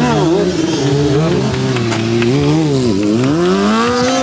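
Stunt motorcycle engine being revved hard, its pitch swinging up and down over and over, dropping deeply about three seconds in and then climbing steadily.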